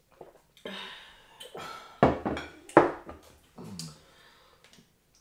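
Dishes and tableware being handled during a meal: two sharp knocks about two seconds in, under a second apart, among softer clatter and rustling.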